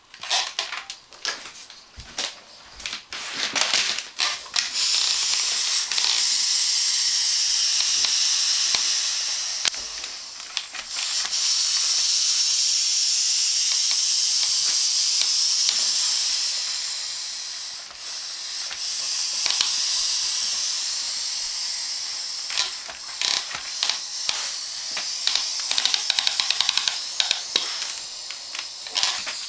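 A compact steam floor mop hissing steadily as it is pushed over a wooden floor, with scattered clicks and knocks in the first few seconds. The hiss fades briefly twice, and a quick run of sharp ticks comes near the end.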